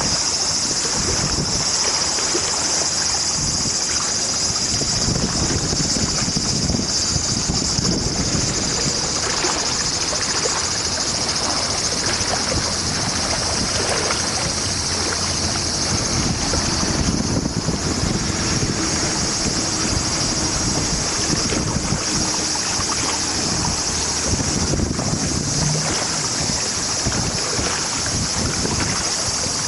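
Wind buffeting the microphone outdoors, over a steady high-pitched hiss that holds throughout.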